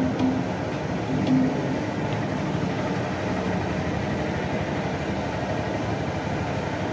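Sliced onions deep-frying in a large pan of refined oil over a high gas flame: a steady sizzle with the low rush of the burner underneath.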